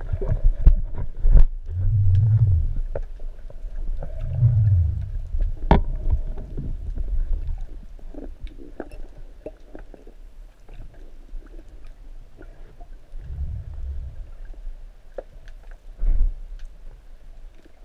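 Muffled underwater sound picked up by a speargun-mounted camera: low rumbling surges lasting about a second each, several seconds apart, along with scattered knocks and clicks as the speargun and line are handled, including one sharp click about six seconds in.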